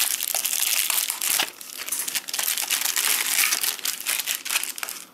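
Clear LDPE plastic bag crinkling and crackling as it is handled and pulled off a small electronic display unit, a dense run of sharp crackles.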